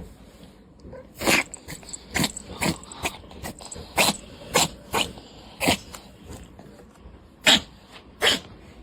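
Devon Rex cat coughing in a rapid fit: about eleven short, dry coughs in quick irregular succession, with a gap of over a second before the last two. The cough brings up nothing, neither hairball nor mucus, and the vet puts it down to chronic lung inflammation rather than asthma.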